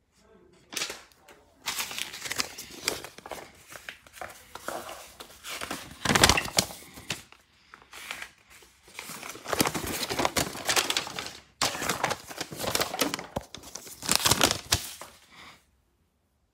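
Folded paper instruction leaflet rustling and crinkling as it is handled and unfolded, in bursts with short pauses, stopping near the end.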